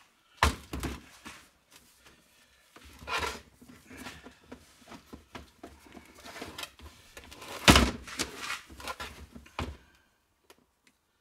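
Knocks and thunks of a plastic crate of cast-aluminium scrap being lifted and handled on a workbench, with metal pieces rattling inside. Four main knocks come about half a second in, around three seconds, just under eight seconds and near ten seconds; the one just under eight seconds is the loudest.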